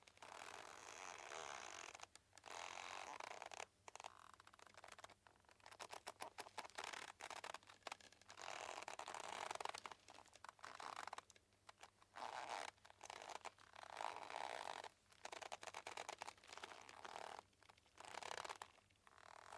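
Boat rope creaking: irregular drawn-out creaks of one to two seconds, alternating with quick runs of ticking clicks and short pauses.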